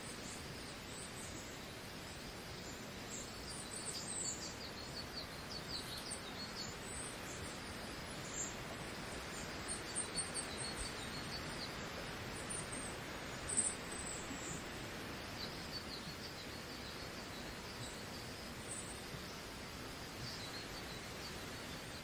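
Forest ambience: a steady hiss of background noise with birds chirping in short, scattered calls, one chirp standing out about two-thirds of the way through.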